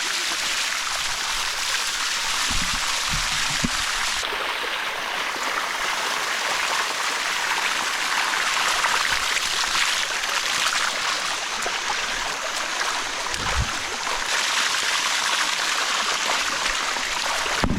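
Water of the Bua Tong sticky waterfall running steadily over the limestone rocks close to the camera, with a few dull bumps low down.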